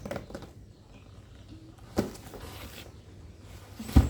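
Objects being handled and set down during unpacking: a few sharp knocks about two seconds apart, the loudest a heavy thump near the end.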